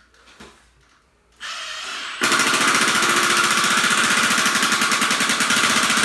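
Milwaukee cordless power tool driving a Tapcon concrete screw into a concrete foundation. About a second and a half in it spins up briefly, and from about two seconds in it hammers loudly and steadily at a rapid rate as the screw binds and will not seat flush.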